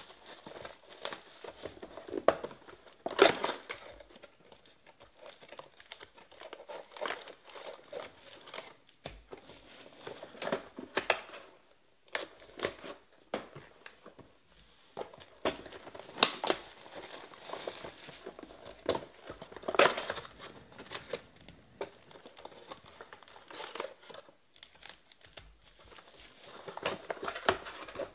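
Plastic wrapping on trading-card hobby boxes crinkling and tearing as the boxes are unwrapped and opened by hand. Irregular rustles and crackles run throughout, with louder tears about three seconds in, around the middle, and near the end.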